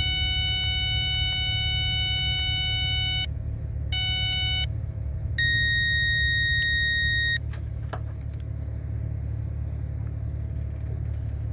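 Steady electronic beep tones over a steady low rumble: a long beep of about three and a half seconds, a short beep at the same pitch, then a higher-pitched beep held for about two seconds.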